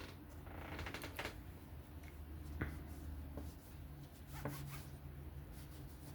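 Small mechanical handling sounds of a folding knife being worked on: a short rasp about a second in, then a few sharp, light clicks.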